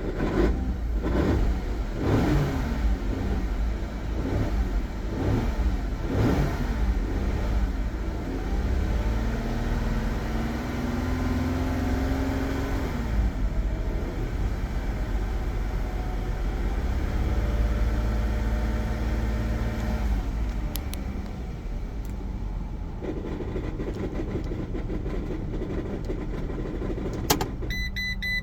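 A 2017 Ram ProMaster's 3.6-litre Pentastar V6 is revved up and down several times, then held higher before settling back toward idle. It carries a ticking noise that the owner puts down to a broken flywheel. Near the end there is a sharp click and a few short, high beeps.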